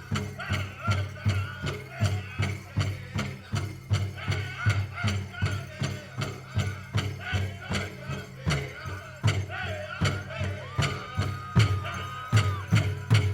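Powwow drum group playing: a big drum struck in a steady beat with singers' high, wavering voices over it. Near the end a singer holds one long high note, then the drum and singing stop together as the song ends.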